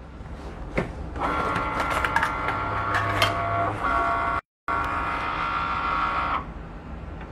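Cricut Maker cutting machine starting a foil-transfer job: a click about a second in, then its motors whine steadily as the tool carriage moves, stopping abruptly near the end. A short gap cuts the sound out about four and a half seconds in.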